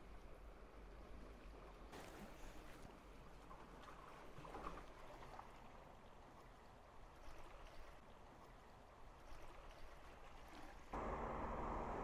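Faint outdoor ambience: a soft, even rushing like wind and lapping water. About eleven seconds in it jumps abruptly louder, with a low steady hum under the noise.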